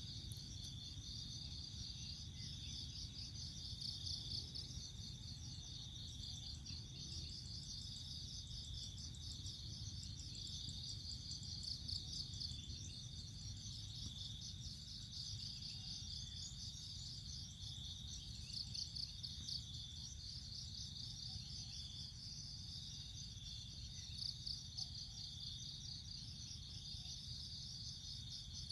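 A steady chorus of cricket-like insects chirping: a high, rapidly pulsing trill that keeps going without a break, over a low steady rumble.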